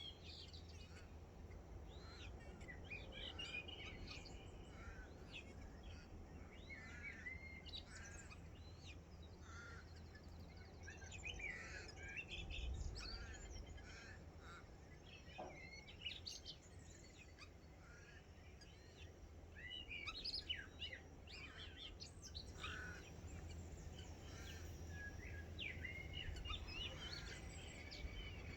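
Morning bird chorus: many birds chirping and warbling at once in quick, overlapping calls, over a low steady rumble.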